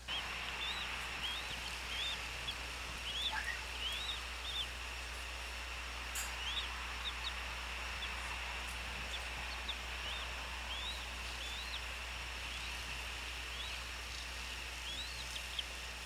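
Outdoor animal ambience: a steady high-pitched hiss with short rising chirps repeating about once a second, over a low hum.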